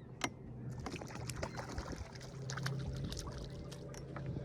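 A boat motor running steadily under way, with water rushing and splashing along the hull and a few sharp knocks, the sharpest just after the start.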